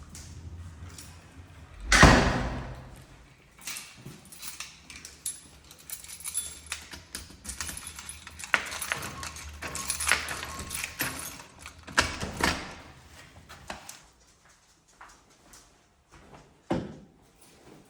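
Everyday handling sounds: a run of knocks, clicks and rustles, with one loud thump about two seconds in and quieter, sparser clicks near the end.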